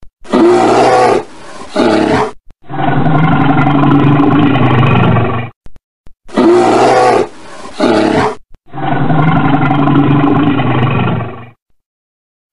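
Brown bear roaring and growling in four loud calls with short silences between: a shorter call broken in the middle, then a longer steady growl, and the same pair again about six seconds in.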